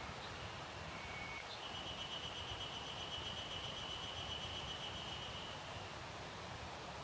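A songbird singing in a forest: a short high note, then one long, even, rapid trill lasting about four seconds. Under it runs a steady hiss of wind rustling the leaves.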